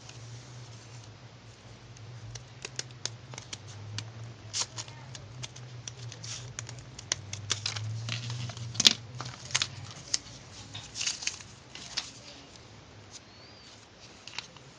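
Hand crafting of a shuriken: irregular sharp snips and clicks, like scissors cutting and paper or card being handled, the loudest about nine seconds in, over a low steady hum.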